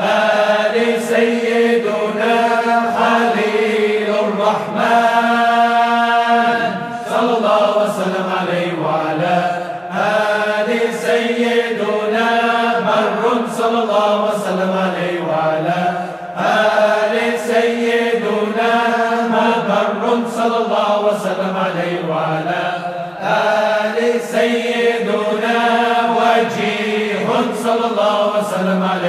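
Voices chanting zikr in Arabic in repeating melodic phrases, with one long held note about five to seven seconds in.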